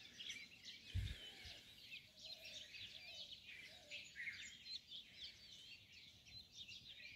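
Many small birds chirping and twittering together, faint and continuous, with a single low thump about a second in.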